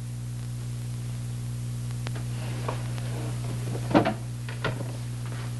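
A wooden desk drawer being handled, with a knock about four seconds in and a smaller one just after, preceded by a faint click. Under it runs the steady low hum and hiss of an old film soundtrack.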